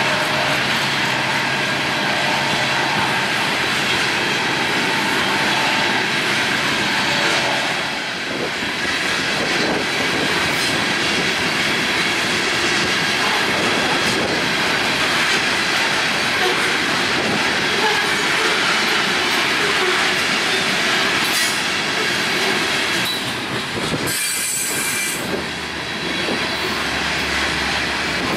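Coal train passing: the steady rush and clatter of the coal cars' steel wheels on the rails. Near the end a low steady drone comes in from a locomotive at the train's rear.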